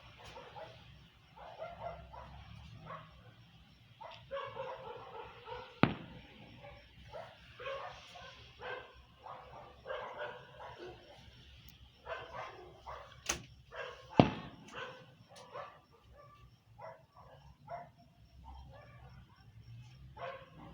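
Dog barking and yipping again and again, with three sharp bangs from fireworks: one about six seconds in and two close together around thirteen to fourteen seconds.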